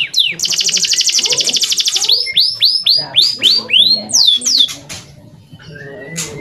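Male canary singing: a rapid high trill, then a run of about seven slurred whistled notes, then a couple more before the song tails off about two-thirds of the way in.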